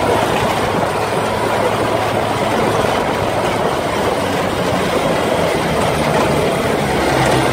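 Off-road buggy driving on a gravel dirt track, heard from its own seat: the engine running under the steady, dense noise of tyres and frame on the rough surface.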